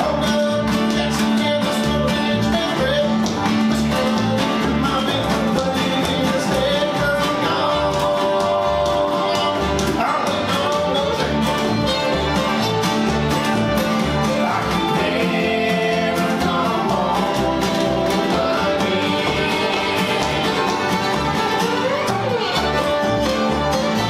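Bluegrass string band playing live: acoustic guitars, banjo, fiddle and upright bass together over a steady plucked bass pulse, with sliding fiddle lines.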